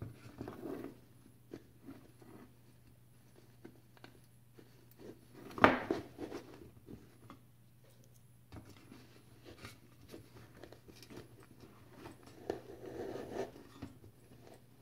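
Hands handling faux succulents and moss in a galvanized metal pail: scattered light rustles, crunches and small taps, with one sharper, louder knock about six seconds in. A faint steady low hum runs underneath.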